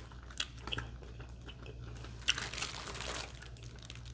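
A person chewing and biting into a grinder sandwich, with soft crunches and scattered mouth clicks and a longer crunchy stretch about two seconds in.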